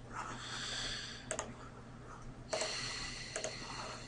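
Two breaths into a close microphone, each about a second long, the first at the start and the second about two and a half seconds in, with a few sharp computer clicks between and after them.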